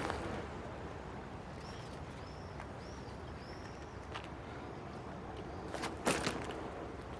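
Quiet street ambience with a small bird chirping four times, short rising-and-falling chirps, about two seconds in. A few sharp knocks near the end are the loudest sound, as a schoolbag is handled.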